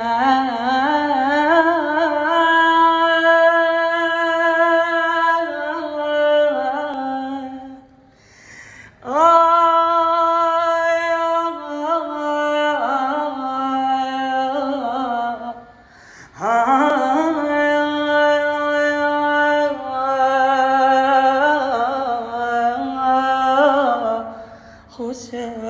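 A man singing solo and unaccompanied, in long held, ornamented wordless 'aah' lines. There are three phrases, broken by short pauses about 8 and 16 seconds in.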